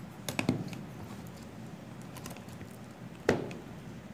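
Metal spoon scraping and knocking against a plastic tub while scooping butter: a few light clicks near the start and one sharper knock about three seconds in.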